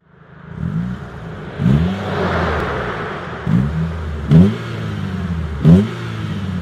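Renault Clio RS 2.0 16v four-cylinder engine through a Supersprint full exhaust (182 manifold, metallic sports cat, 63.5 mm centre and "stealth" rear silencers), idling and blipped about five times in quick revs. The later blips are the loudest.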